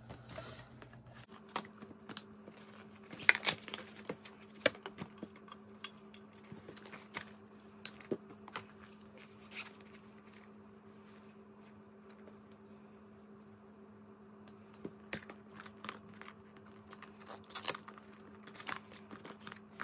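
Store tags being pulled off new fabric and plastic cosmetic bags by hand: scattered light clicks, rustles and crinkles of tag fasteners, paper tags and packaging, bunched about three seconds in and again near the end, over a faint steady hum.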